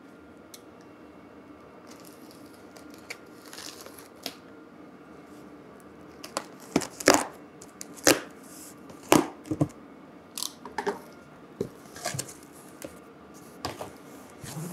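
Utility knife cutting through packing tape along the seam of a heavy corrugated cardboard box, with tape tearing and cardboard scraping. Fainter at first, then from about halfway a string of sharp, loud rips and cuts.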